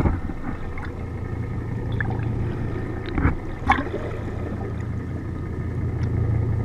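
Underwater recording: a steady low drone of the boat's engines carried through the water, under a wash of rushing, bubbling water, with two sharp clicks a little past the middle.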